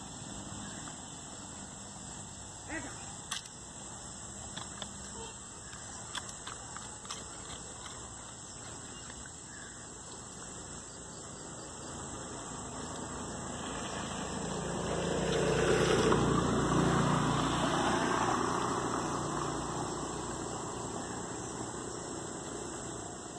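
Outdoor ambience with a steady high hiss. Small taps and scratches in the first half come from the dog's paws at the mirror and on the dirt. Around the middle, a motor vehicle's sound swells and then fades over several seconds as it goes by.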